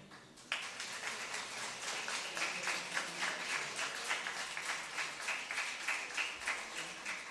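An audience applauding with steady hand-clapping, starting about half a second in, just after the piano stops.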